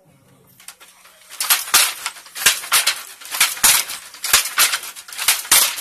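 Wooden treadle handloom weaving, its shuttle and beater clacking in a fast, steady rhythm of about two to three sharp knocks a second, building up about a second in.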